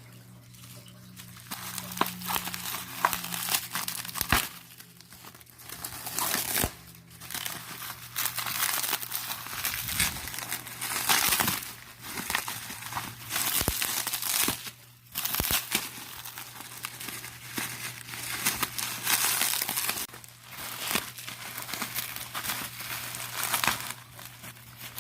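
Packing wrap crinkling and rustling in irregular bursts with short pauses as a package is unwrapped by hand.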